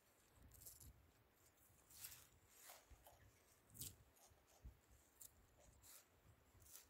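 Near silence: a faint low rumble with a few soft ticks and rustles scattered through.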